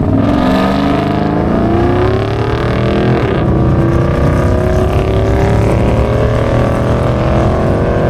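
Pickup truck's 5.3-litre V8 with a Texas Speed top-end build, launching off the line at full throttle. Its pitch climbs steadily, drops at a gear shift about three seconds in, then climbs again as the truck pulls away down the strip.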